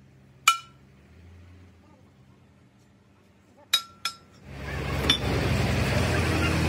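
Metal clinks: three sharp metal-on-metal strikes, each ringing briefly, the last two close together. About four and a half seconds in, a loud steady running noise sets in and holds.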